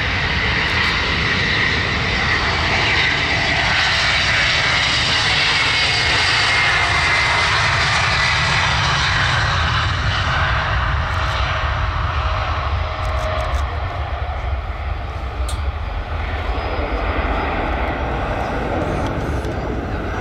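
Antonov An-178's two D-436 turbofan engines at takeoff power as the jet rolls down the runway and climbs away: a loud steady jet roar with a high whine that sinks slowly in pitch over the first several seconds. In the second half the sound gets a little quieter and rougher.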